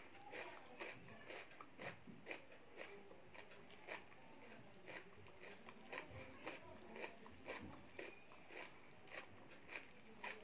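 Faint wet chewing smacks of someone eating rice and urad dal, short clicks about twice a second, mixed with soft squishing as the food is worked by hand on the plate.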